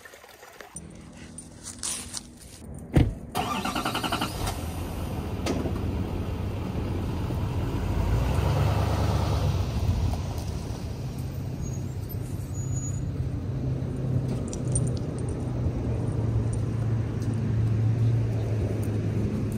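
Pickup truck door slamming shut about three seconds in, then the engine starting and running with a steady low rumble. The rumble grows louder around the eight-second mark as the truck pulls away.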